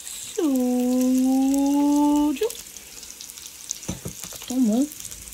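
A voice holding one long sung or hummed note for about two seconds, over faint trickling as soju is poured from a glass bottle into shot glasses; a knock follows about four seconds in.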